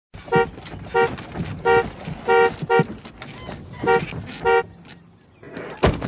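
Car horn honking in seven short, irregularly spaced blasts. A single sharp knock comes just before the end.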